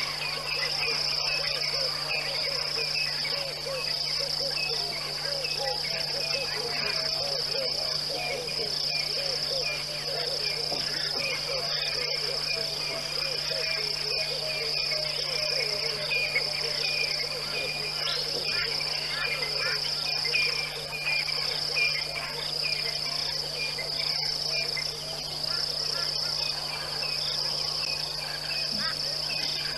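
Night insect chorus: a steady, evenly pulsing high trill, with many small chirping calls lower down and a faint steady low hum underneath.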